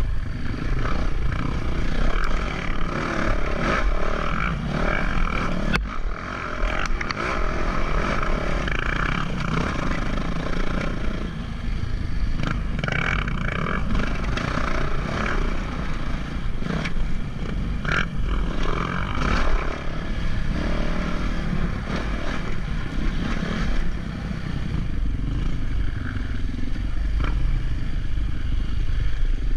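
Steady rumble of a moving vehicle, with a constant low buffeting that sounds like wind on the microphone.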